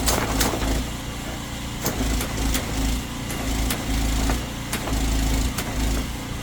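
High-pressure drain jetter's engine running, the low hum swelling and easing every second or so as the gun's trigger is worked on and off to drive the worm nozzle against a blockage in the drain. Scattered sharp clicks over it.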